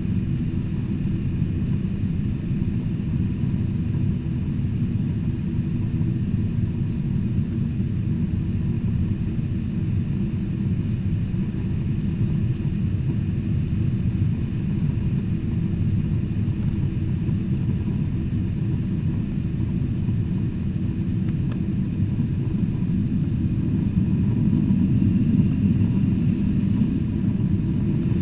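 Steady low rumble of a Boeing 747-400 heard from inside the passenger cabin, swelling slightly near the end.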